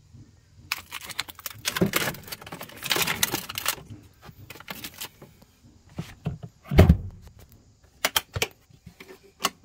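Plastic water bottles crinkling and knocking together as they are shifted around in a fridge's wire basket, followed by a single heavy thump about seven seconds in and a few light clicks near the end.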